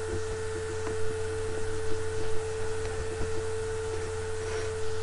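Steady electrical hum and hiss from the recording setup, with a constant low drone and a steady mid-pitched tone, and a few faint ticks scattered through it.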